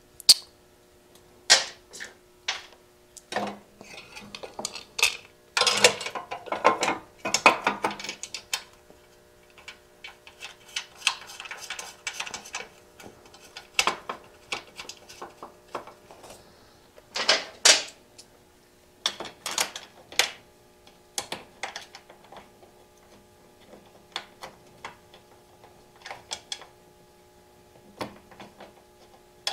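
Hands fitting a metal passenger foot-peg bracket and its bolt onto a motorcycle frame: scattered clicks, clinks and knocks of metal on metal, with a few longer scraping stretches. A faint steady hum runs underneath.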